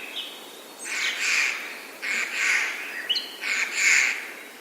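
Spring forest birds: three harsh, noisy bird calls about a second long each, with a couple of short whistled notes between them.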